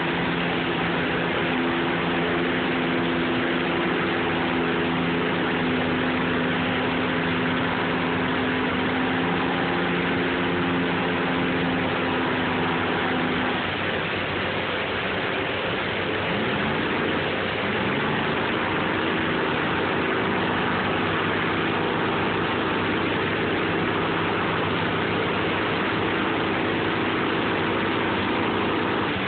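Water pouring over a low dam, a steady rushing, with the engine working the crane barge running underneath. About halfway through the engine's note breaks off, then climbs back up and holds steady again.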